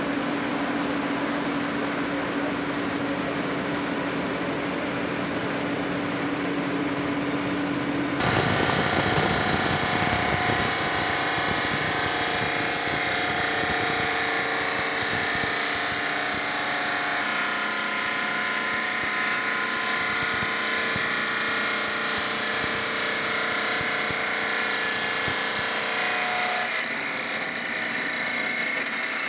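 Granite cutting machine running, its water-cooled saw cutting a granite slab under water spray with a steady mechanical noise. About eight seconds in it turns suddenly louder with a strong high hiss, which eases slightly near the end.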